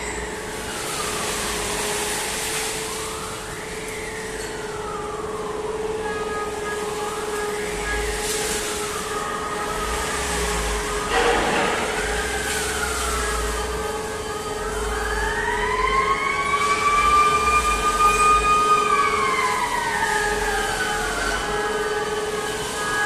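Electric drive motors of a steel rebar rolling mill whining up and down in pitch as they speed up and slow down, a rise and fall every few seconds, over a steady machine hum. Near the end one long whine rises, holds and falls. A single sharp knock about halfway through.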